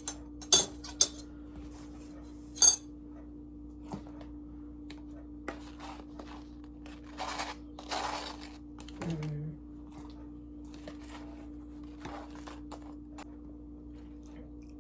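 Dishes and utensils clinking and clattering during food preparation: a few sharp clinks in the first three seconds, then scattered knocks and a longer rustling stretch in the middle, over a steady hum.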